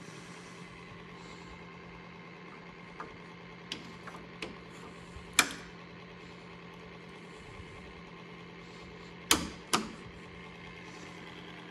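Sharp plastic clicks and snaps as a GMC grille emblem is pressed into place on the grille: a few small clicks, one louder snap about five seconds in, and two loud snaps close together near the end. A steady low shop hum runs underneath.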